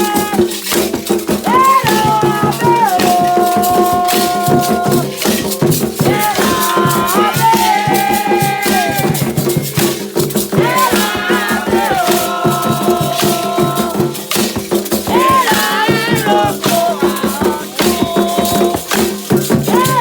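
Ritual song: a voice singing long held notes in phrases of a few seconds over a rattle shaken without pause.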